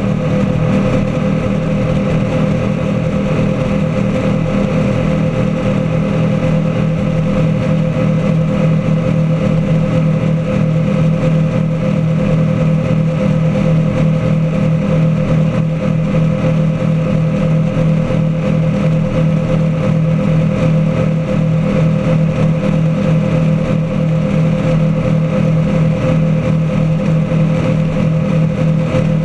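Engines of a 35-foot Lightning performance boat running steadily at high speed, a constant drone with the rush of wind and churning water beneath it.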